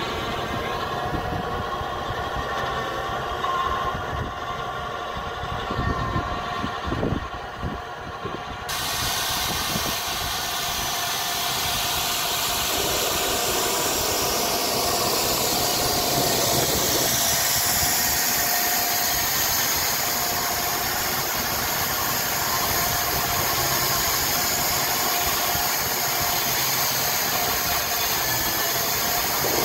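Case IH 95C tractor's engine running steadily under load while it drives a PTO-powered rotary power harrow through tilled soil. About nine seconds in, the sound turns abruptly brighter and stays steady after that.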